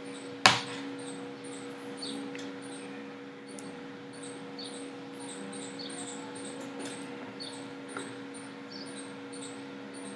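Background room sound: a steady low electrical hum with faint high-pitched chirps repeating about twice a second, and one sharp click about half a second in.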